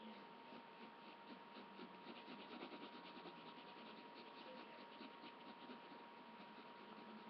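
Drawing on paper: faint, quick, short scratching strokes, like hair being sketched in, over a thin steady tone.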